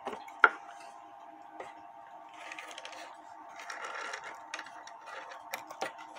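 A carved wooden cuckoo clock case being handled and shifted on a workbench: a sharp knock about half a second in, then scraping and a few lighter knocks and clicks, over a steady hum.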